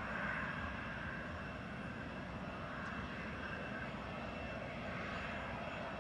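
Steady running of a parked Airbus A320neo jet airliner heard across the apron: an even low rumble with a faint steady high whine.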